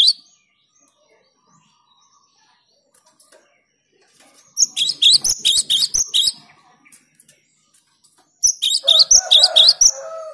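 Cinereous tit (gelatik batu) singing: two bursts of rapid, repeated high chirping phrases, each about two seconds long, starting about four and a half and eight and a half seconds in, with near silence between them. The second burst is joined by lower notes.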